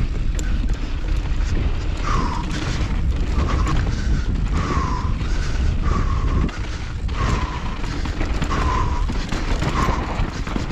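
Mountain bike descending a loose, rough dirt trail at race pace: wind buffeting the microphone, tyres and bike rattling and knocking over the ground. Through it comes a short tone that dips slightly in pitch, repeated about once a second.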